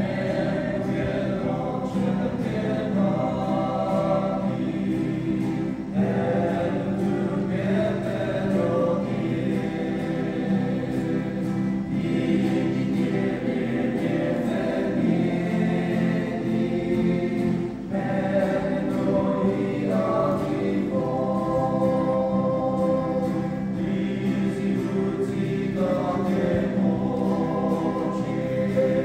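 A small men's choir singing a hymn together, accompanied by an acoustic guitar.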